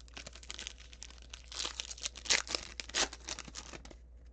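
Wrapper of a Panini Certified football card pack being torn open and crinkled by hand: a dense run of crackling, loudest in the middle, that stops about four seconds in.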